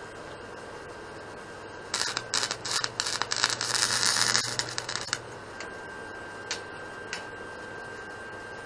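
Lincoln MIG welder laying a short weld on steel angle iron: about three seconds of crackling arc with a low hum under it, starting about two seconds in, then a couple of faint clicks.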